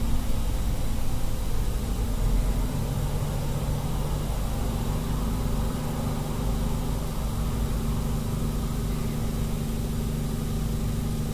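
A steady low machine hum made of several held tones over a soft hiss, its tones shifting slightly about three and four and a half seconds in.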